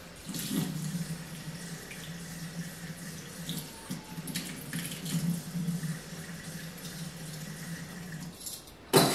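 Kitchen faucet running water at the sink, steady, shutting off about eight seconds in. Then a brief, loud clatter right at the end.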